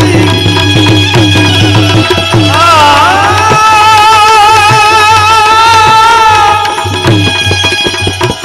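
Gujarati devotional folk music: tabla playing a steady rhythm under a melody that wavers in pitch. In the middle the melody holds one long note for about four seconds.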